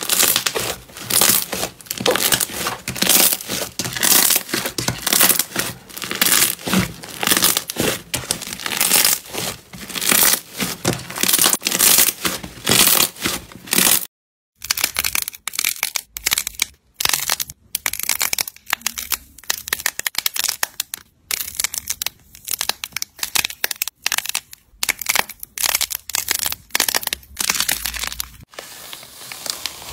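Hands kneading and squeezing thick rainbow slime: a dense, continuous run of crackling, popping and squelching. About halfway in it cuts to a moment of silence, then comes sparser, separate crinkling and crunching as pearl-coated foam-clay balls are squeezed and crushed.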